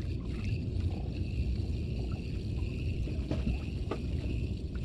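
Steady low wind rumble on the microphone, with choppy water washing against a small boat's hull.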